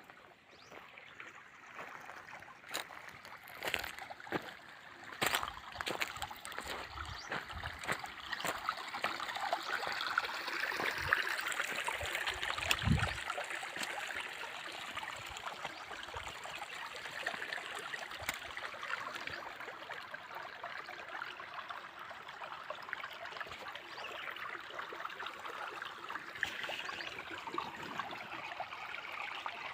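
Water running and trickling steadily, building over the first several seconds, with scattered clicks and knocks early on and a single low thump about 13 seconds in.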